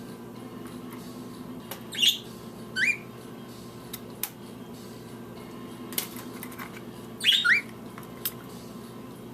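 Budgerigars chirping: two short pairs of calls, each a high chirp followed by a quick rising one, about two seconds in and again about seven seconds in, with a few sharp clicks between them over a low steady hum.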